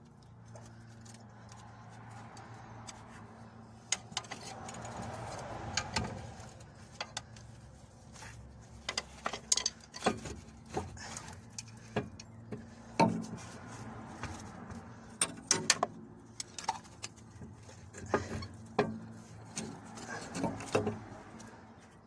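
Irregular metallic clinks, clicks and knocks of tools and parts being handled during brake work, over a faint steady hum.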